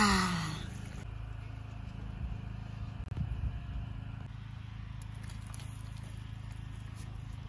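A kazan and its lid being handled, with a few scrapes and knocks about two to three and a half seconds in, over a steady low hum. A short laugh or exclamation with falling pitch comes at the very start.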